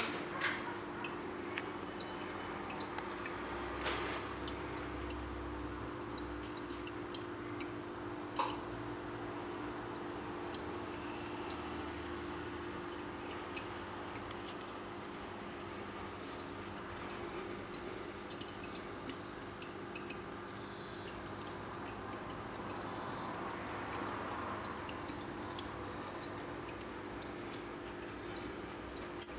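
Small terrarium waterfall trickling steadily, with a low steady hum underneath and a few sharp knocks early on.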